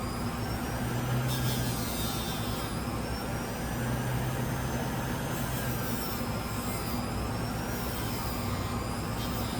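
Bench grinder running steadily with a fiber wheel, polishing the metal bolster of a folding knife. A faint whine wavers up and down in pitch as the metal is worked against the wheel.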